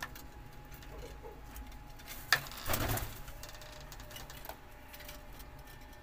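Quiet pigeon loft with a faint steady hum. There is a sharp tap a little over two seconds in, followed just after by a short, low pigeon coo.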